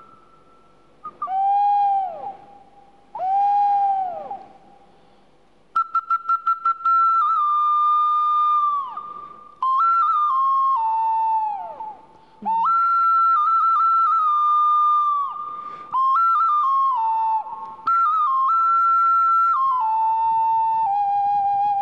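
Evenki carved wooden flute (bird-call whistle) played to imitate forest birds. It starts with two short whistled calls, then a quick trill of rapid pulses about six seconds in, followed by longer held notes that step between a few pitches and slide down at the end of each phrase.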